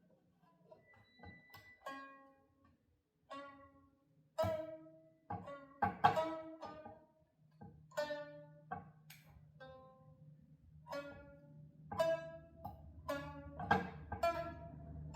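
Notes plucked one at a time on a homemade stringed instrument, each ringing and fading, played loosely as a tune; its note spacing is admittedly rough, which the maker says is why it sounds the way it does. A low steady tone joins in about halfway through.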